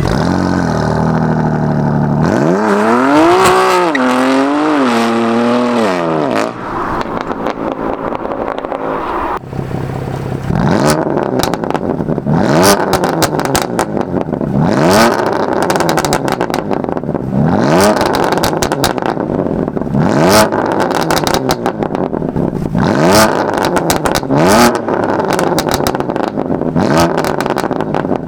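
BMW M2 Competition's twin-turbo straight-six running through a straight-pipe exhaust. It idles, is revved in a few quick blips, then from about ten seconds in is revved again and again about every two and a half seconds, each rev dropping back with sharp cracks and pops.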